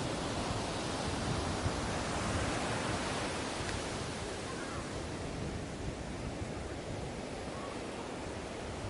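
Ocean surf washing on a beach: a steady rushing hiss of breaking water, fuller for the first few seconds and then easing off.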